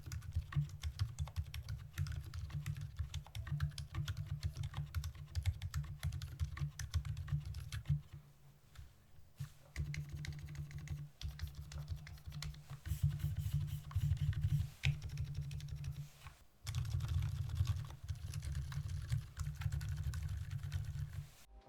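Typing on a Novelkeys NK65 mechanical keyboard with stock, unlubed Gazzew Boba Pink silent linear switches, an aluminium plate and PBT keycaps: a fast, steady run of keystrokes. It thins out briefly about eight to ten seconds in, drops out for a moment around sixteen seconds, and stops just before the end.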